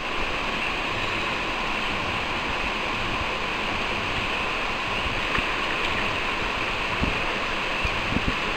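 Turbulent river water rushing steadily, with a few short low bumps near the end.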